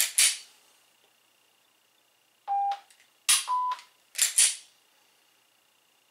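Dry-fire par timer: a lower start beep about two and a half seconds in, then a higher beep a second later marking the 1-second par time. Short sharp clicking and rustling bursts from hands working the pistol come around the beeps, at the start and about four seconds in.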